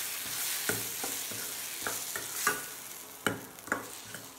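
A steel spoon stirring onion-tomato masala in a stainless steel kadai, clinking and scraping against the pan at irregular intervals over a steady frying sizzle.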